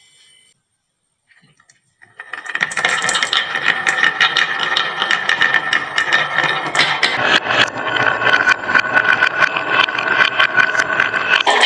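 Many marbles rolling and clattering down a wooden marble-run slope, a dense, continuous rattle of rapid clicks that starts suddenly about two seconds in.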